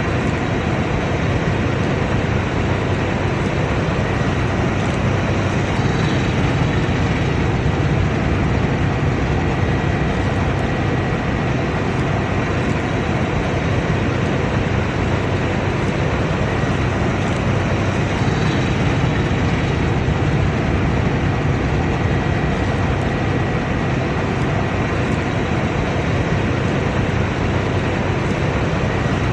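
Combine harvester running steadily: a dense, even mechanical drone with a faint steady high whine.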